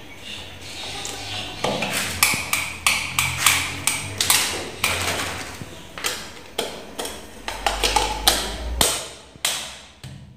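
Irregular sharp clicks and knocks, about two a second, of a plastic power-socket faceplate and screwdriver being handled and pressed against the wall as the socket is fitted.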